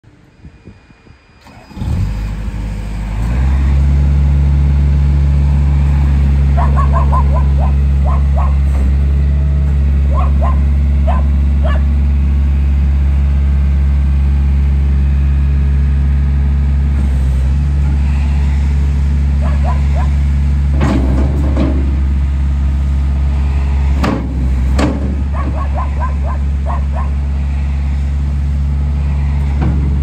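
Gehl R150 skid steer's diesel engine starting about two seconds in, then running steadily as the machine drives and works its bucket. A few sharp knocks come in the second half.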